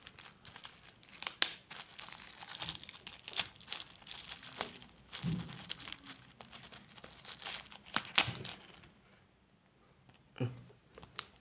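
Shiny plastic sticker sachet crinkling and crackling as it is torn and peeled open by hand, with a number of sharp crackles; the crinkling stops about nine seconds in.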